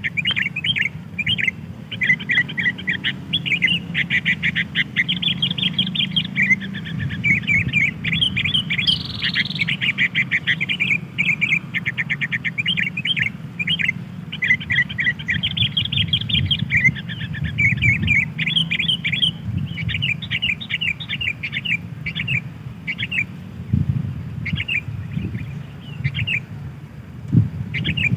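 Sooty-headed bulbuls (kutilang) chirping rapidly and without pause in a dense run of short notes, over a steady low rumble.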